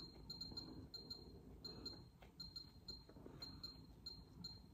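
Faint, short high beeps, about three a second, from an Instant Pot Dutch Oven's control panel as its dial is turned step by step to set the cooking time.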